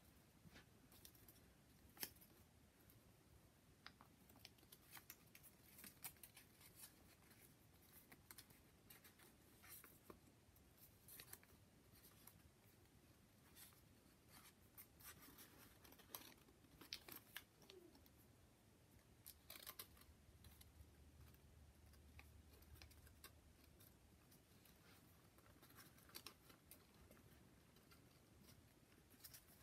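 Faint, scattered rustles and crisp ticks of folded paper origami units being handled and tucked into a paper polyhedron.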